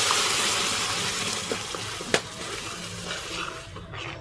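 Blended masala gravy sizzling as it is poured into hot melted butter in a metal pan and stirred, the hiss starting loud and slowly dying down as the pan cools under the gravy. One sharp click about two seconds in.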